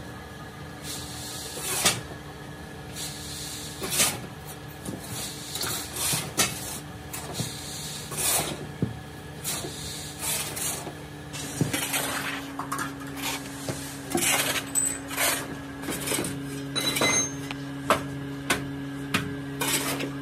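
A steel rod driven into molding sand in a steel casting flask to pack it, giving irregular thuds and metallic clinks. A steady low machine hum runs underneath and grows stronger about halfway through.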